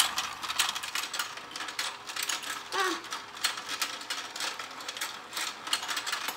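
Let's Go Fishing toy's battery-powered rotating fish pond running: its plastic gear drive makes a fast, uneven clicking and clattering over a faint steady motor hum.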